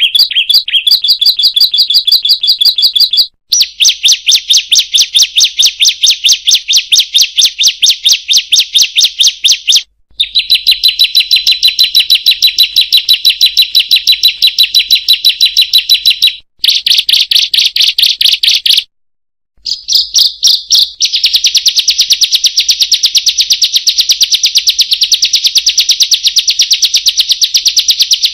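Ciblek (bar-winged prinia) singing loud, fast trills of rapidly repeated high notes. Short pauses break the song into phrases several seconds long.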